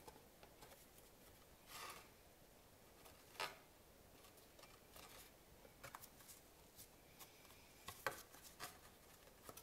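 Near silence with faint rustling and a few light taps of kraft cardboard being handled and pressed together by hand, with one sharper tap about three and a half seconds in.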